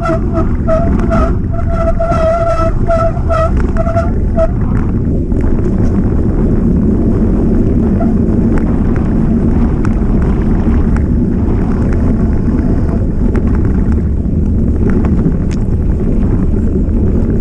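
Mountain bike rolling fast down a trail: a steady rush of wind on the microphone over tyre rumble and frame rattle. For the first four seconds a short chirp repeats about three times a second, then stops.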